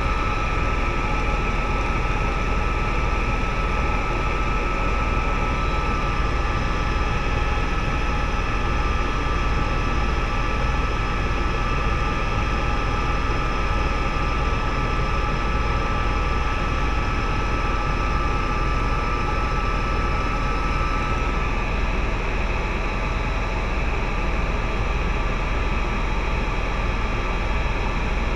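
Tour helicopter in cruise flight heard from inside the cabin: a loud, steady drone of engine and rotor noise, heavy in the lows, with a steady whine over it that drops out about three-quarters of the way through.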